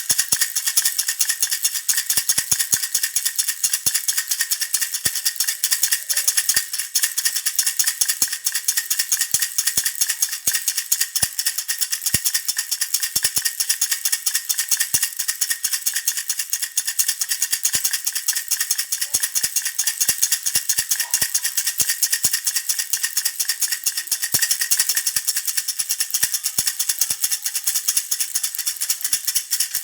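A baby's jhunjhuna, a handheld toy rattle, shaken without a break: a fast, dense, bright rattling that stays even in strength.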